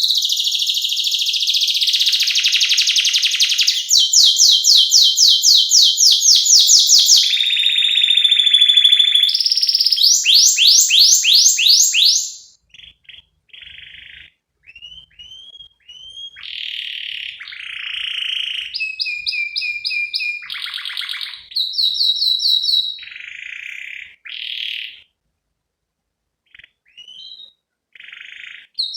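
Domestic canary singing. About twelve seconds of loud, continuous song made of fast trills and rolls, then shorter separate phrases and chirps with pauses between them.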